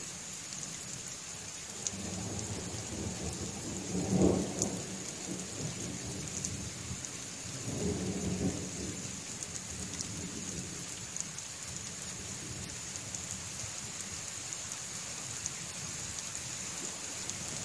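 Thunderstorm: steady rain with rolling thunder. One rumble builds to its loudest about four seconds in, another rolls around eight seconds in, and a third begins at the very end.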